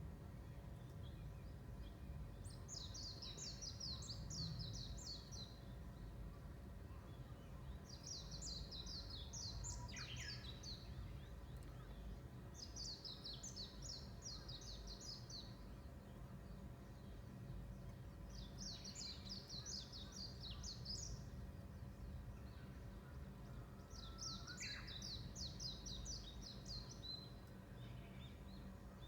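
A songbird singing the same high, fast trilled phrase five times, about every five seconds, over a low steady background rumble.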